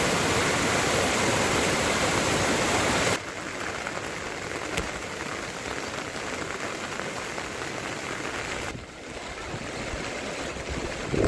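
Heavy rain falling, a steady hiss. It drops suddenly to a softer patter about three seconds in and drops again near the end.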